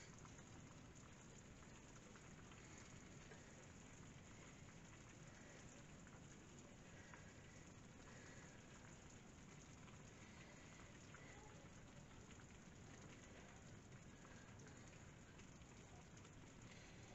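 Faint, steady sizzling of a clay tagine simmering on the stove, with a few soft ticks.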